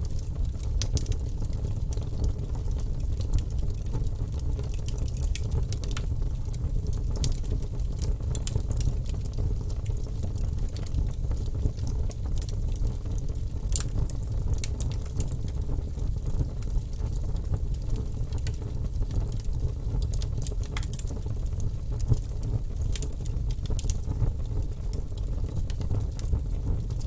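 Wood fire crackling in a fireplace: a steady low rumble of the flames with frequent small sharp pops and snaps.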